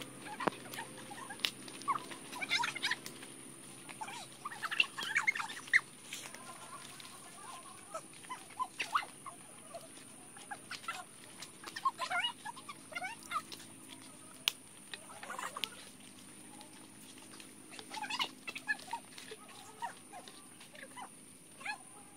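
Forest ambience: a steady high-pitched insect drone with scattered short chirps and clicks, and footsteps in wet mud.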